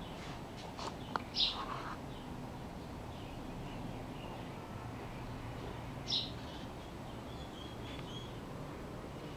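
Steady low hum with a few brief high chirps; the two clearest come about a second and a half in and about six seconds in.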